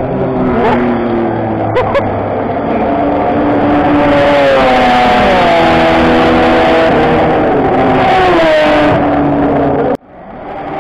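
Racing-car engines running hard down the circuit's main straight, their pitch holding and then dropping several times as the cars pass. The sound cuts off abruptly about ten seconds in and comes back.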